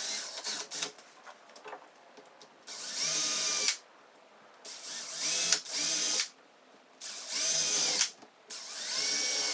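DeWalt drill boring pilot holes for hinge screws into the wooden door edge, run in several short bursts of about a second each, the motor's whine rising as it spins up at the start of each burst.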